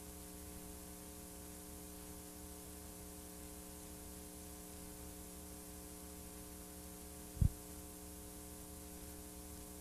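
Blank videotape playback noise: a steady electrical hum under a hiss, with one short pop about seven and a half seconds in.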